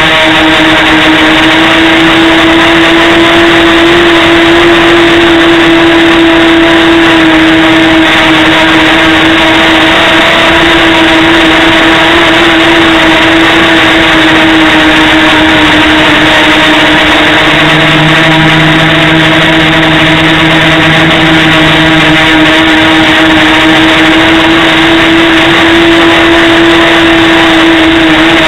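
Small multirotor drone's electric motors and propellers heard from its onboard camera: a loud, steady buzz whose pitch drifts slightly up and down as the throttle changes in flight.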